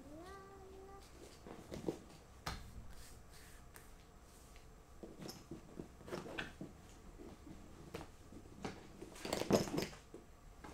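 Mostly quiet, with scattered light knocks and rustles from a person moving about behind a suitcase, more of them near the end. At the very start there is a short hummed vocal sound that rises and then holds.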